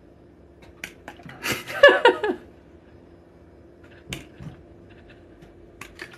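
Plastic spray bottle trigger clicking and spraying, with a short hiss and a cry that falls in pitch about two seconds in, over a steady low hum.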